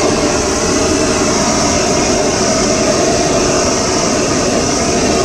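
Handheld gas blowtorch burning steadily with a loud, even rushing noise as its flame melts the cheese on the paninis.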